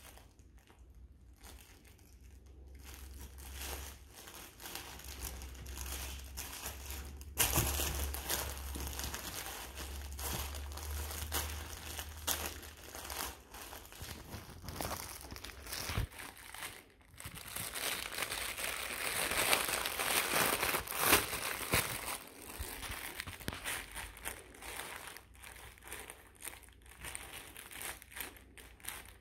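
Dunkin' x BarkBox plush munchkin-box dog toy crinkling and rustling as a golden retriever puppy noses into it, chews and paws at it. The rustling is uneven, with louder stretches about seven seconds in and again around twenty seconds.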